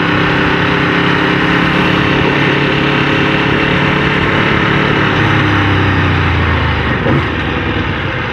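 Aprilia RSV4 RF's V4 engine idling steadily under a broad noise haze. A deeper note comes in about five seconds in and fades out near seven seconds.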